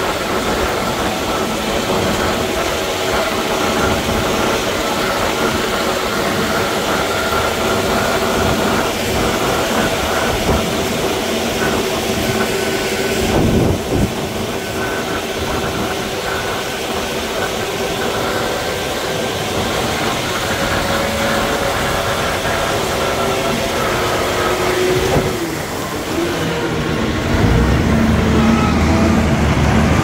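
Diesel engines of heavy road-building machines running steadily. A louder, deeper engine sound comes in about three seconds before the end.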